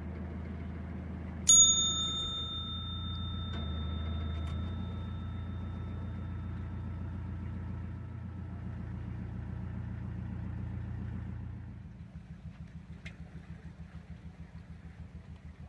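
A narrowboat's diesel engine runs steadily. About a second and a half in, a small bell is struck once and rings on for several seconds. Near the end the engine is throttled back to idle, settling into a slow, even beat.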